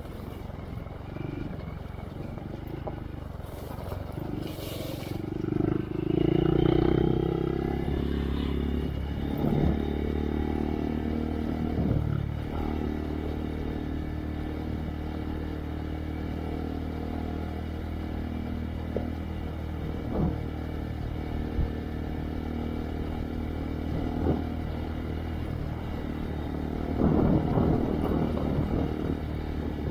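Honda Monkey's single-cylinder four-stroke engine running through a Yoshimura RS3 exhaust with spark arrestor as the bike is ridden on a trail. The engine picks up about six seconds in and then holds fairly steady. Scattered knocks and clatter are heard over bumps, with a louder rough stretch near the end.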